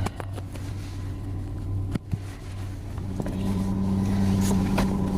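Van engine idling steadily, heard from inside the cabin as an even low hum, with a few sharp clicks from handling things in the van.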